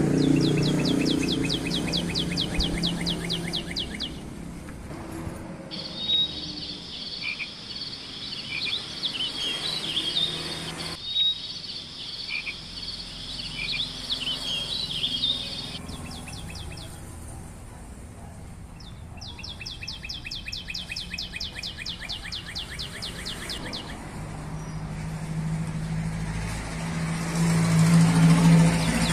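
Outdoor insect and bird ambience: high, rapidly pulsing insect trills, then a steady high insect buzz with bird chirps over it, changing abruptly several times. A low steady hum sits underneath near the start and again near the end.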